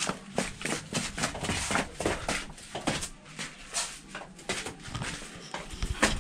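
Footsteps walking quickly down stairs, a steady run of short knocks at about three a second.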